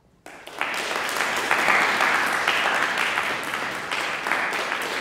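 Audience applause breaking out suddenly just after the start out of near silence, then continuing as a dense, steady clapping.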